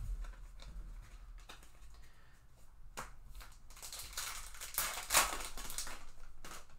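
Foil wrapper of a 2021 Topps Finest Flashbacks baseball card pack being torn open and crinkled, after a few light clicks of cards and packs being handled on the table.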